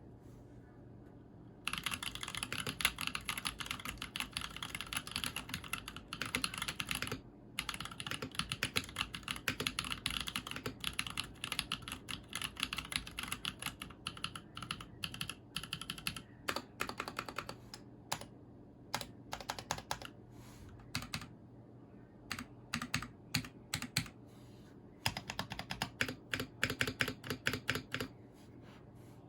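Typing on a custom 60% mechanical keyboard, a KBDfans Tofu60 with tactile Holy Panda switches and GMK Olivia++ keycaps. It begins about two seconds in with fast continuous typing, has a brief pause, slows midway to separate, spaced keystrokes, and picks up to quicker typing again near the end.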